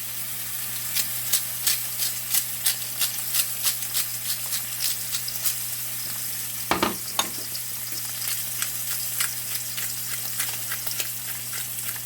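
Bone-in ribeye searing in a hot cast iron skillet with butter: a steady sizzle with frequent sharp crackling pops of spattering fat.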